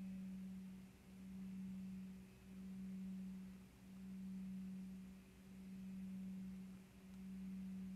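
Sustained low pure tone with a faint overtone an octave above, swelling and fading about every second and a half, played as a meditation drone.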